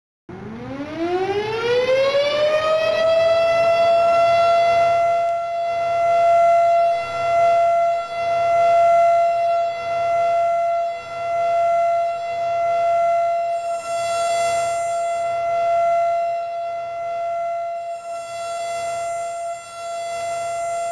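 Outdoor warning siren winding up, its pitch rising over about three seconds, then holding a steady wail whose loudness swells and fades every couple of seconds.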